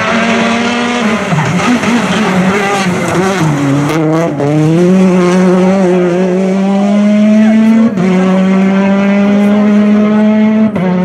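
Peugeot 208 T16 R5 rally car's turbocharged four-cylinder engine driven hard: the revs fall under braking for the first few seconds, then climb steadily as it accelerates away, with a sharp upshift about eight seconds in and another near the end.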